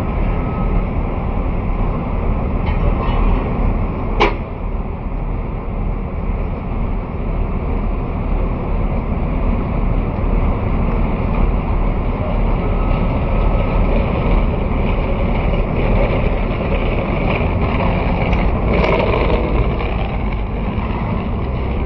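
Steady street traffic noise, a continuous low rumble of passing vehicles, with a sharp click about four seconds in.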